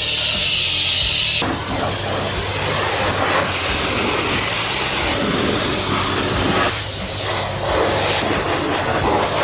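High-pressure washer jet spraying water onto a motorcycle: a loud, steady hiss with spattering water, whose tone shifts abruptly about a second and a half in.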